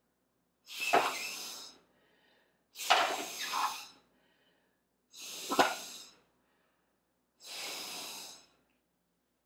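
Four hard puffs of breath blown through a drinking straw, each about a second long, pushing ice cubes across a metal baking sheet; a sharp tap sounds near the start of the first three puffs.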